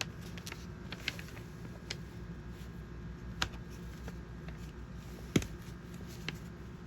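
Hard plastic toy parts being handled and pressed together: scattered light clicks and taps, with one sharper click about five seconds in.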